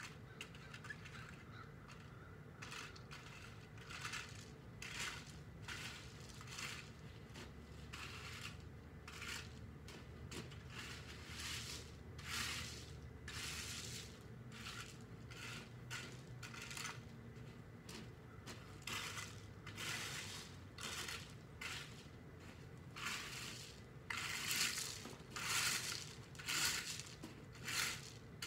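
Gravel being raked and shovelled by hand: a run of short crunching, scraping strokes, the loudest near the end.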